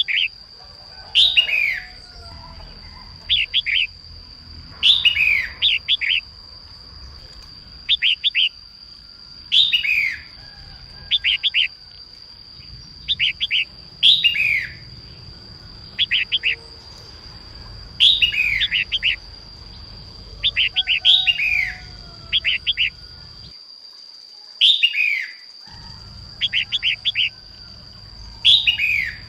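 Female red-whiskered bulbul calling over and over: short downward-sweeping notes, each followed by a quick cluster of chirps, repeating about every two seconds. A steady high tone runs behind the calls.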